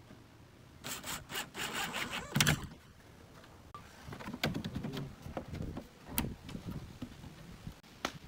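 A cordless driver runs in short bursts, driving a screw into a metal cabinet hinge, loudest about two and a half seconds in. Then the small wooden door is swung on its hinges, with scattered wooden knocks, clicks and rubbing.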